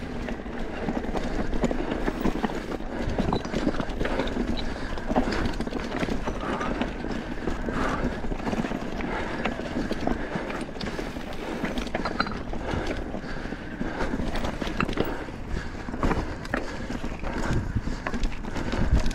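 Mountain bike riding over a rocky, loose-stone trail: tyres crunching and knocking over rocks while the bike rattles and clatters in a steady, uneven patter of small knocks.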